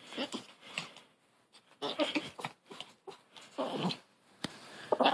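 Long-haired chihuahua puppy growling, grrrrr, in a series of short bursts.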